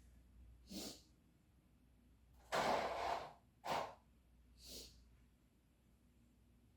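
A person's breathing noises: four short breathy bursts, sniffing and blowing out hard through the nose, the second, about two and a half seconds in, the loudest and longest.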